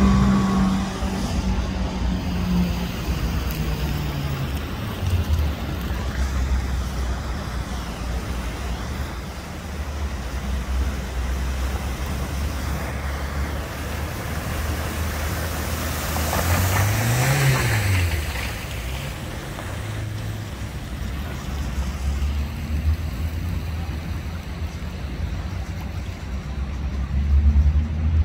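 Cars driving slowly through floodwater on a street, engines running low and steady while the tyres push through and spray the water. About two-thirds of the way through, one car passes close, its engine note rising then falling with a surge of splashing.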